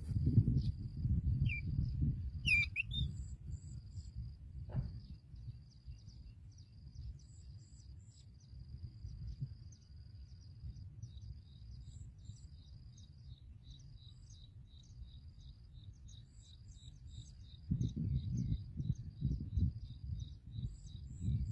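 Small birds chirping: a long run of short, high chirps repeated several times a second, with a single louder call about two and a half seconds in. A low rumble sits under the chirps at the start and again near the end.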